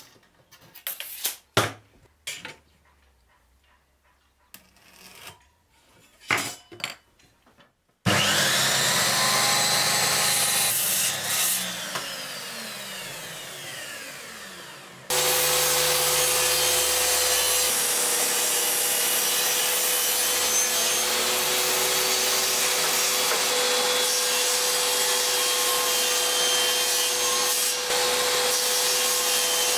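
A few light taps and knocks from handling and marking wood. About eight seconds in, an electric miter saw starts and cuts, then its motor winds down with falling pitch. About halfway through, a table saw switches on and runs steadily with a constant hum as boards are cut on a crosscut sled.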